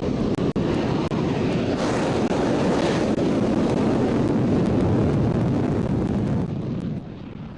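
F-16 fighter jet engine running at full power with the afterburner lit on the takeoff roll: a loud, steady, deep roaring rush that eases off shortly before the end.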